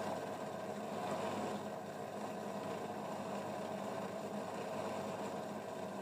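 Asko front-loading washing machine running a test program after its drain pump was replaced, a steady even mechanical hum.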